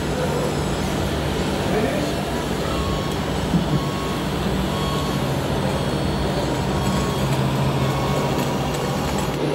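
Radio-controlled model trucks and construction machines running together, with a steady low engine-like drone, faint short beeps repeating every second or so like a reversing alarm, and voices chattering in the background.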